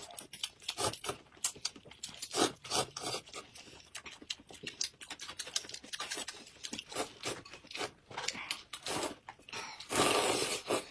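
Close-miked eating sounds: a steady run of short wet mouth smacks and chewing, with noodles being slurped. Near the end there is a longer, louder slurp as broth is drunk from the bowl.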